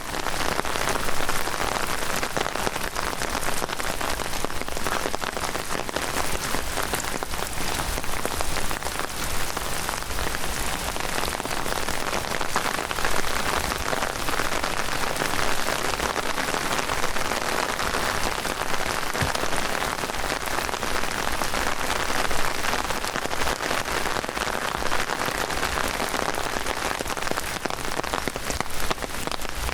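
Heavy rain falling steadily: a dense, even patter of raindrops on the surfaces all around.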